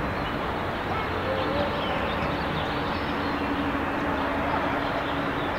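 Steady open-air noise and rumble on a football training pitch, with faint distant shouts of players. A faint low hum holds for a few seconds in the middle.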